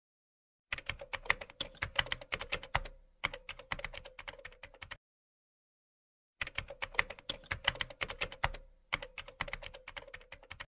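Rapid computer-keyboard typing clicks in two runs of about four seconds each, separated by a pause of about a second and a half.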